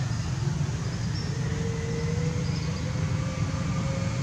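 Steady low rumble of a motor vehicle's engine running nearby, with a faint humming tone that slowly rises in pitch.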